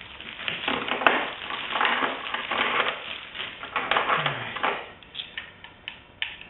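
Clear plastic parts bag crinkling and rustling as it is handled and rummaged through, in bursts for about five seconds, then a few light clicks near the end.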